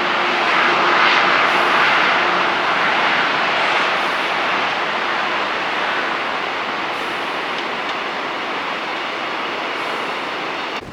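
A passing vehicle: a steady rushing noise that swells about a second in and slowly fades over the following seconds, with a faint low hum in the first few seconds.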